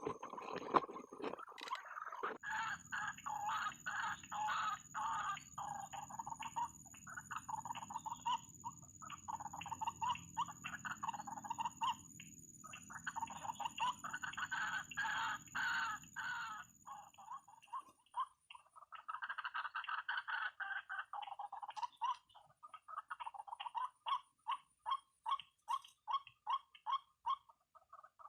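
White-breasted waterhens calling, long runs of rapid, repeated croaking calls broken by short pauses, ending in a steady series of about two to three calls a second. A steady low hum runs underneath through the first half.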